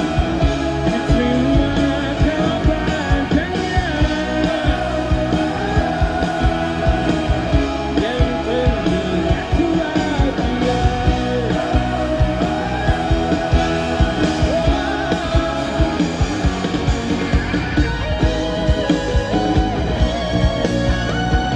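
Live pop-rock band playing with a male lead singer, drum kit and electric guitar, with a steady beat.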